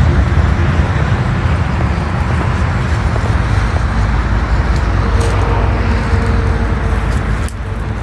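Steady road traffic rumble from passing vehicles, with a faint whine joining about five seconds in, easing slightly just before the end.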